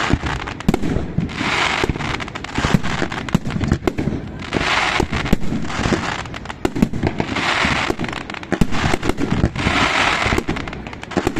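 Fireworks going off: a dense run of sharp pops and crackles, with a louder hissing rush about every three seconds.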